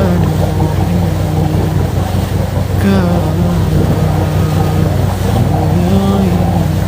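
Quran recitation: a reciter's chanting voice holding long, slowly bending notes, over a steady rushing white-noise bed with a low hum.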